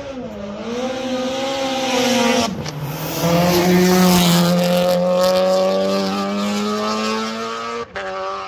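Race car accelerating hard up the hill past the roadside. The engine note climbs, dips at an upshift about two and a half seconds in, then pulls strongly again. It is loudest as the car passes about four seconds in and is cut off abruptly near the end.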